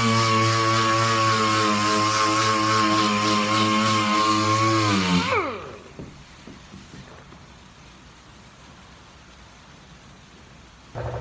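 A power tool stripping undercoating from a car's quarter panel runs steadily at high speed, then is released about five seconds in and winds down with falling pitch. After a few quieter seconds of light clattering, a machine starts up again with a steady hum just before the end.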